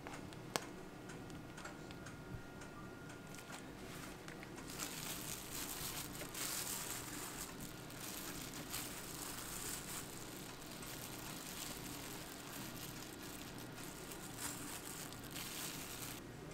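Thin plastic crinkling from a disposable glove and piping bag being handled, running from about five seconds in until near the end, over a steady low hum; a single sharp click comes about half a second in.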